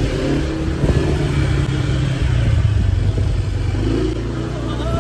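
Motorbike engine running as the bike rides along, a steady low rumble.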